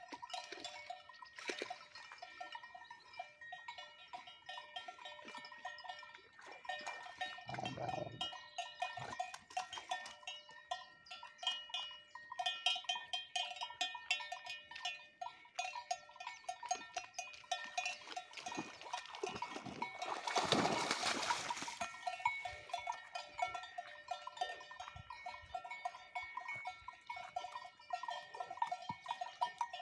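Neck bells on Simmental cattle, big kelek bells and small zil bells, clanking and jingling without a break as the animals move. A brief rush of noise comes about twenty seconds in.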